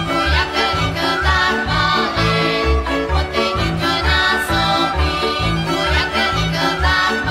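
Slovak folk music with a steady bass beat, laid over the riding footage.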